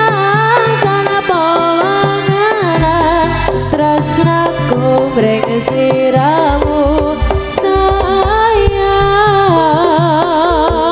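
Live Javanese jaranan music: a wavering, ornamented lead melody over hand drums, with deeper low strokes coming in about three seconds in.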